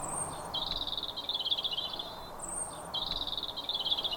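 Garden songbird singing: a thin high note followed by a rapid trill about a second and a half long, repeated twice.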